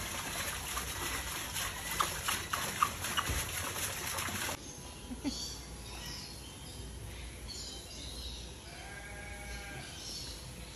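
Outdoor ambience with small birds chirping and, near the end, one drawn-out pitched animal call lasting about a second. Before an abrupt change about four seconds in, there is a steady hiss with a few sharp clicks.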